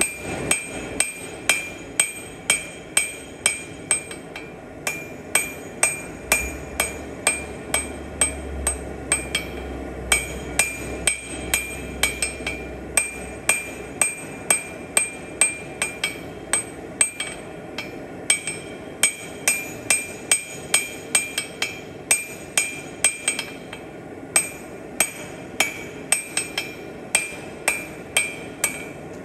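Blacksmith's hand hammer striking steel on an anvil in a steady rhythm, about two blows a second. Each blow leaves a bright metallic ring, and the hammering pauses briefly every few seconds.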